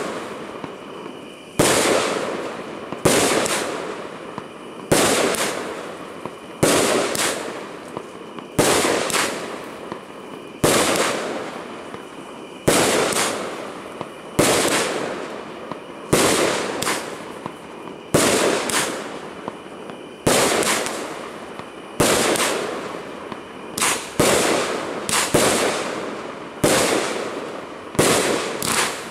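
Planet X Rebellion 200-gram 25-shot consumer fireworks cake firing shot after shot, with hard-hitting breaks. About sixteen sharp bangs come evenly spaced, roughly one every second and a half to two seconds, each trailing off before the next.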